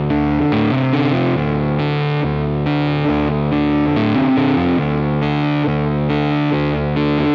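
Background music: a guitar-led instrumental track with sustained chords that change every half second to a second.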